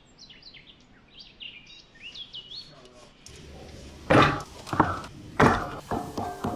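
Small birds chirping in quick high rising and falling calls, followed by three loud knocks a little over half a second apart and a few lighter knocks. Music begins near the end.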